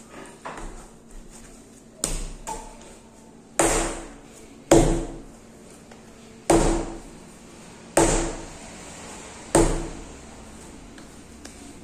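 Hand-kneaded pizza dough thudding against a granite countertop: about seven dull knocks at an uneven pace of roughly one a second, starting a couple of seconds in.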